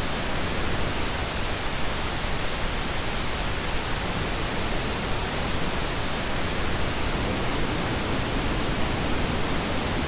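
Steady pink noise test signal generated in Audacity, played as part of an A/B comparison against versions with a 3 dB EQ cut and boost centred at 250 Hz.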